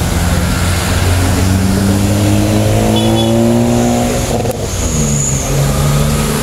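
A vehicle engine pulling hard, its pitch rising steadily for about four seconds, then dropping suddenly at a gear change and pulling again at a lower pitch.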